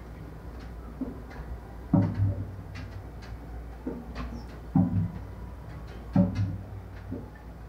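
Drum strikes from Hita Gion-bayashi festival music at a distance, coming at uneven intervals. The three heaviest fall about two, five and six seconds in, with lighter beats and faint short clicks between them.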